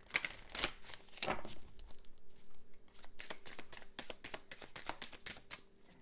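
A deck of oracle cards being shuffled by hand: a run of short card clicks and flicks, more spread out at first and coming quicker and more evenly in the second half.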